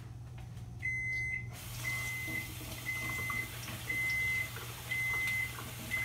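Electronic beeper on a kitchen appliance sounding one high tone about once a second, six short beeps starting about a second in, over a steady low hum.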